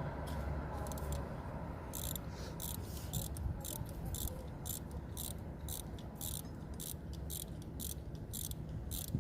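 Ratchet wrench clicking, a few scattered clicks and then from about two seconds in an even run of about three clicks a second, over a steady low rumble.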